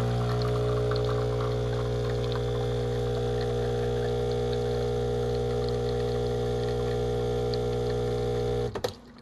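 Espresso machine's vibratory pump humming steadily while a shot pulls into a glass. It cuts off abruptly with a click near the end, as the shot is stopped.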